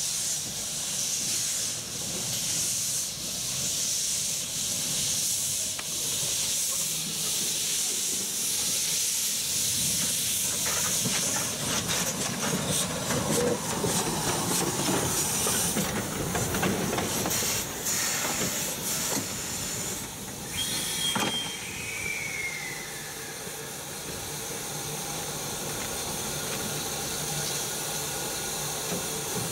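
Steady hiss of steam from a Blanc-Misseron 020+020 Mallet metre-gauge steam tank locomotive standing with steam up, with scattered metallic clanks and knocks in the middle.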